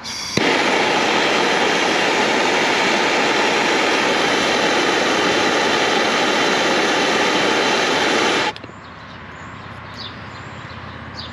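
Handheld soldering torch lit and burning with a steady loud hiss while heating a copper pipe joint, then shut off suddenly about eight and a half seconds in.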